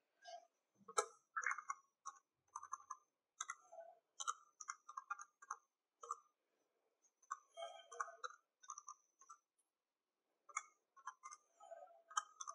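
Calculator keys being pressed, a run of faint short clicks in several bursts with brief pauses between.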